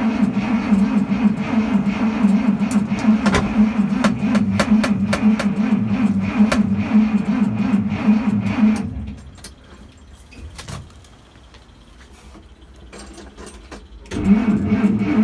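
Dodge D300's Slant Six being cranked over by its starter on a first start attempt after about 20 years standing. It cranks steadily for about nine seconds and stops abruptly. After a few seconds' pause, cranking starts again near the end.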